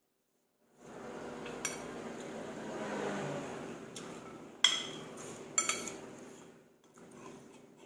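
Metal spoon clinking sharply against a ceramic soup bowl three times, the loudest about halfway through, over several seconds of noisy eating sounds.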